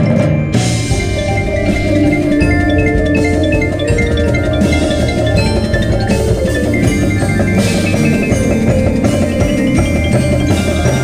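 Concert percussion ensemble playing: marimbas, vibraphones and xylophones in fast, dense mallet lines over low sustained notes, with cymbals and drums in the mix.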